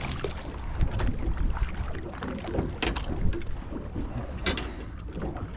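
Wind on the microphone and water against the hull of a small fishing boat, a steady rushing noise with a low rumble. A few short sharp knocks and clicks come through as a small snapper is reeled in and lifted aboard on the line.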